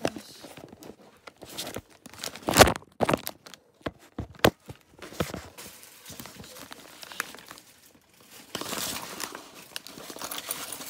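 Paper gift bag rustling and crinkling as a hand rummages inside it, with irregular sharp clicks and knocks among the rustle; the loudest crinkling and knocks come about two and a half seconds in, and another spell of rustling near the end.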